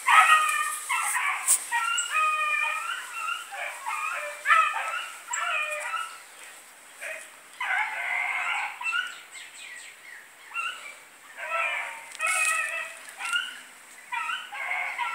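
Rabbit hounds baying on a rabbit's trail: a string of short, pitched cries, several a second and sometimes overlapping, with brief lulls.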